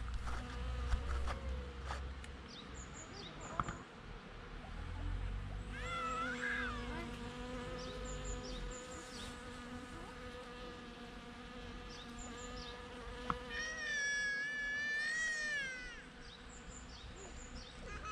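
Bees buzzing, a steady droning hum that fades in and out, with short high chirps repeating throughout and two sliding whistled calls, the louder one about fourteen seconds in.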